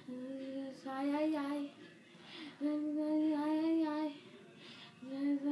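A boy singing without accompaniment: three phrases of long held notes, each about a second or more, with short breaths between them.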